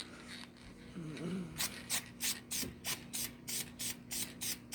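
Aerosol can of VHT Wrinkle Plus paint sprayed in short, rapid bursts, about three or four quick hisses a second, starting about one and a half seconds in. These are quick passes laying on a coat of wrinkle finish.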